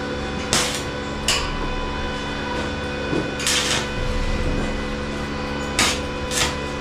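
About five sharp knocks, unevenly spaced, the one about halfway through more drawn out, over a steady hum.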